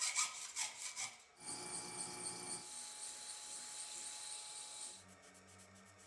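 Quick back-and-forth scraping strokes, like filing or sanding, for about a second. Then a steady high-pitched whirring machine runs for about three and a half seconds and stops suddenly, leaving a faint low hum.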